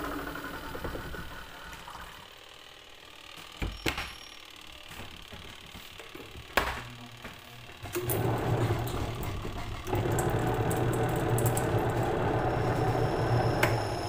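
Washing machine spin motor and basket: a few sharp clicks, then about eight seconds in the spin starts up with a steady hum that grows louder about two seconds later. The spin is running after its capacitor was replaced.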